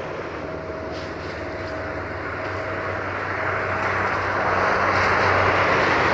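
Caravelle X4500 diesel railcar approaching under power: engine drone and wheels rolling on the rails, growing steadily louder.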